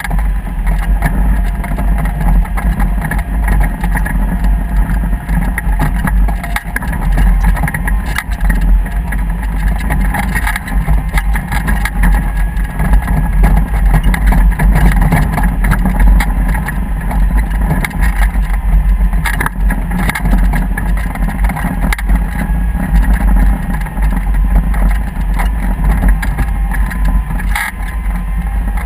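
An engine running steadily under way, with a heavy, constant low rumble and a faint steady whine.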